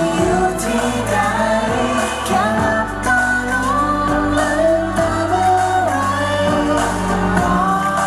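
A male singer sings a pop song live into a handheld microphone over an instrumental backing track.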